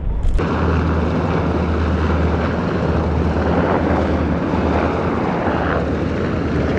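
HH-60W Jolly Green II helicopter flying overhead: a steady drone of main rotor and turbine engines with a low hum. It starts abruptly just after the beginning.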